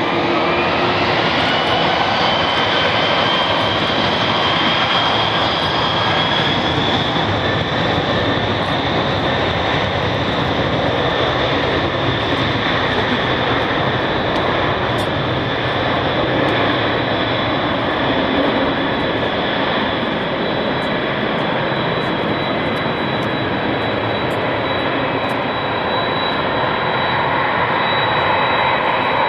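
Boeing 747-400 freighter's four turbofan engines at takeoff power during the takeoff roll: a loud, steady jet roar with a high whine that rises in pitch over the first few seconds and then holds steady.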